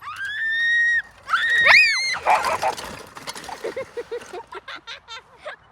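A girl screaming: a high held cry for about a second, then a second rising shriek, a short rush of noise, and then a run of quick breathy laughs, about four a second, to the end.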